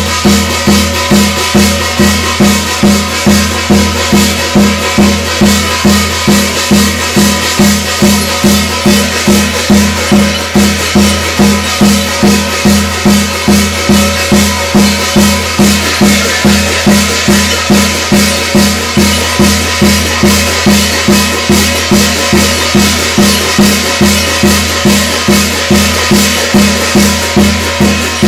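Korean shamanic ritual (gut) music: drums and rattling percussion beat a steady, fast pulse of about two strokes a second over sustained ringing tones.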